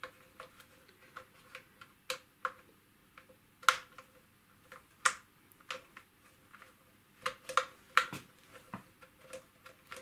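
Irregular sharp clicks and light plastic knocks as a small T8 Torx screwdriver works out the screws of a Dyson V7's plastic cyclone assembly, the part being handled and turned as it goes. A few clicks stand out louder than the rest.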